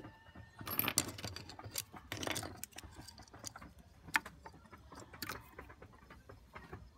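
Small metal and plastic pen drive parts clinking and clattering as they are handled and dropped into a plastic basin. There are two bursts of clatter, about one and two seconds in, then a few single clicks.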